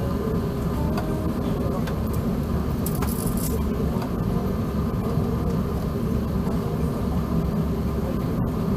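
Steady low rumble inside the cabin of an Airbus A380 with Rolls-Royce Trent 970 engines, taxiing after landing. A few faint clicks, and a brief rustle about three seconds in.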